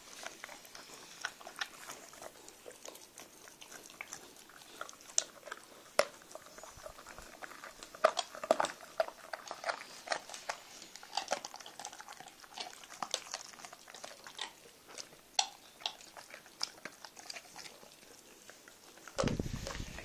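Landseer Newfoundland puppy gnawing a chew toy: irregular sharp clicks and crunches of teeth on the toy. A louder low rumble comes in near the end.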